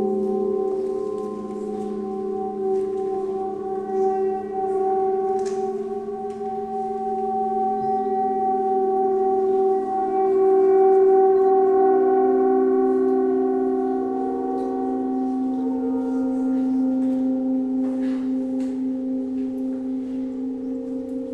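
Gongs ringing in a layered drone of long sustained tones that pulse slowly as they beat against each other, with new lower tones swelling in about two thirds of the way through and a few light taps.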